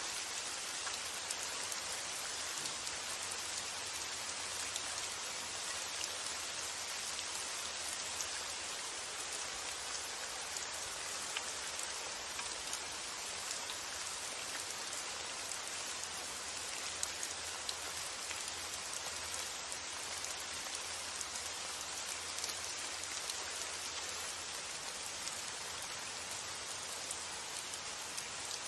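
Steady rain hissing evenly, with scattered single drops ticking, over a faint low rumble of wind.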